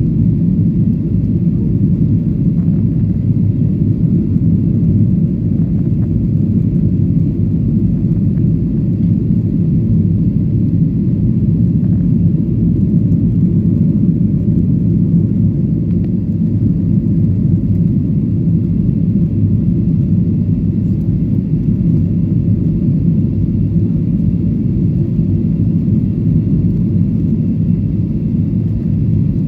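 Steady low rumble of an airliner's jet engines and rushing air, heard inside the passenger cabin on the approach to landing.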